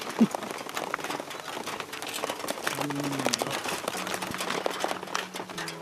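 Rain pattering as many scattered drop ticks, with a short sharp falling cry just after the start, a brief voice about three seconds in, and a steady low hum joining about four seconds in.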